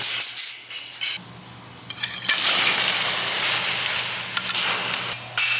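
Metal shop work on a freshly brazed part: a few sharp metallic strikes just after the start, then about three seconds of harsh hissing or scraping noise, with hammer strikes beginning again near the end.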